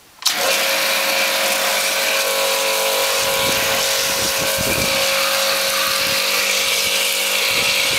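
Pressure washer running, its water jet hissing against a range hood's sheet-metal housing over a steady hum. It cuts off just before the end.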